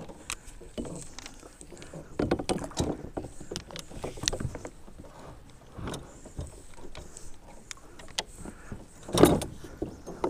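Irregular knocks and splashing as a big northern pike thrashes at the surface beside a plastic kayak, with the paddle and gear bumping the hull. The loudest burst comes about nine seconds in.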